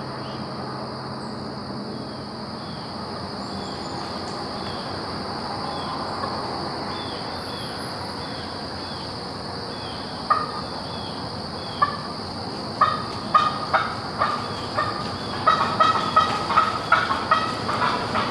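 Wild turkey calling in a run of short, sharp clucks. They begin singly about ten seconds in and come quicker, about two a second, near the end, over a steady high trill of insects.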